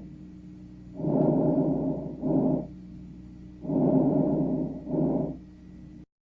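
Chest breath sounds recorded through a stethoscope: three breathing cycles, each a longer low-pitched sound and then a shorter one, about every three seconds, cut off near the end.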